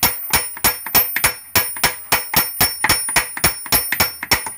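Steel hammer tapping on a Tremec TR3650 transmission's output flange, about four quick blows a second, each with a high metallic ring, driving the flange off the output shaft.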